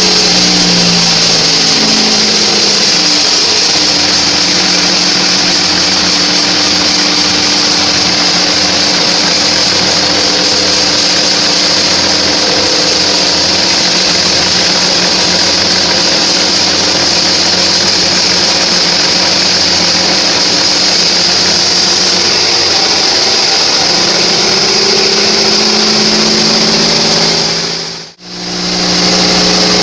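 Engine-driven bandsaw sawmill cutting through a trembesi (rain tree) log, with a steady loud hiss of the blade in the wood over the engine's running note. The engine note sags in the first few seconds as the blade loads up in the cut, and picks up again near the end as the load comes off. The sound cuts out abruptly for a moment just before the end.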